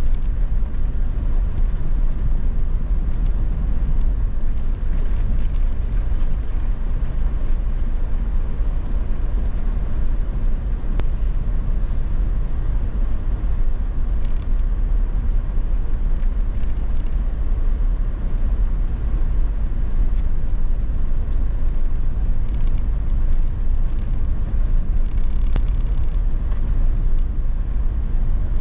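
A vehicle driving, a steady low rumble with faint scattered ticks.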